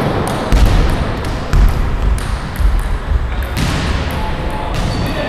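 Table tennis rally: a ping-pong ball clicking off paddles and the table. A basketball bouncing on the gym floor gives low thuds about once a second.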